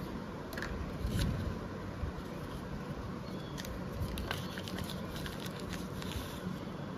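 Thin brown paper packet being torn and crumpled open by hand, a scatter of short irregular crackles and crinkles over a steady low background rumble.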